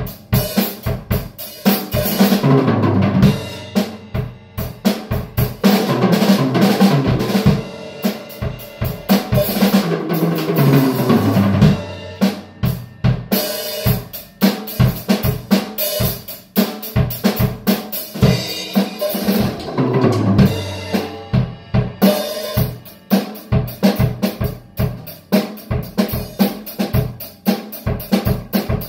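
Drum kit being played: a fast, continuous groove of kick drum, snare and cymbals. About three times a roll runs down the toms, falling in pitch.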